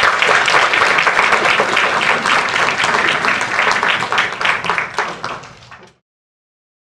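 Audience applauding, the clapping thinning out a little near the end before it cuts off suddenly about six seconds in.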